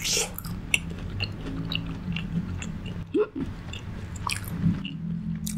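Close-miked biting into a piece of crispy glazed fried pork (yangnyeom gangjeong), a loud crunch at the start, then crunchy chewing with many small crackles.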